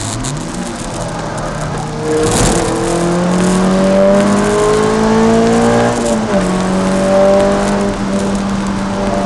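Peugeot 306 Rallye's four-cylinder engine heard from inside the cabin under hard acceleration on track: the revs climb steadily for about four seconds, drop sharply at an upshift about six seconds in, then climb again in the next gear.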